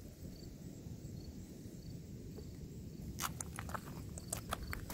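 Wind rumbling on the microphone outdoors. About three seconds in comes a quick run of light clicks and taps, with a faint high tick repeating about twice a second.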